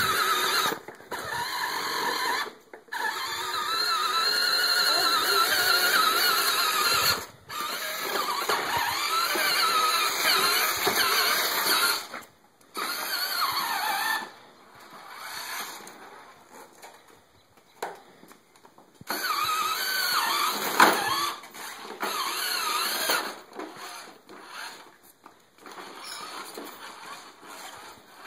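Electric motor and gearbox of a children's battery-powered ride-on toy quad whining in runs of several seconds, cutting out and starting again as the child presses and lets go of the pedal, with shorter, broken runs near the end.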